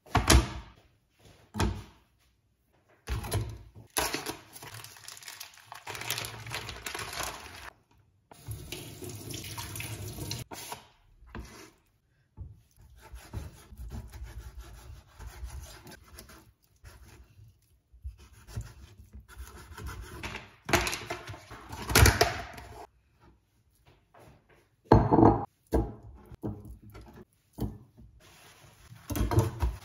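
Kitchen prep sounds: a plastic cutting board set down on a wooden counter with a thunk, then a chef's knife slicing raw pork belly on the board, with scraping, handling noise and sharp knocks, the loudest about two-thirds of the way through. Brief silent gaps break it up.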